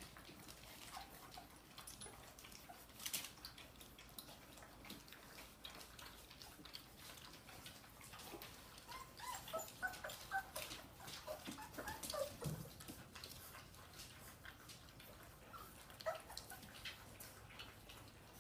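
Weaning-age Dogue de Bordeaux puppies eating together from a stainless steel saucer feeder: many small clicks and smacks of lapping and licking, with brief high squeaks and whimpers that come thickest in the middle and again near the end.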